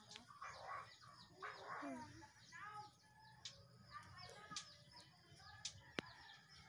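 Faint clucking of chickens with small birds chirping repeatedly, and a single sharp click about six seconds in.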